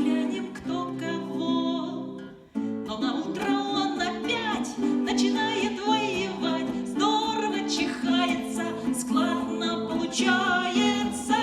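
Song performance: voices singing with acoustic guitar accompaniment, with a brief break about two and a half seconds in.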